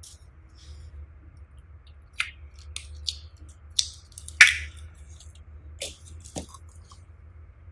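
Slime being squished and worked by hand, giving irregular sticky pops and clicks, the loudest about halfway through, over a low steady hum.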